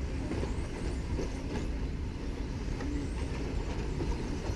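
Radio-controlled short course trucks running on the track, heard as a faint hum over a steady low rumble.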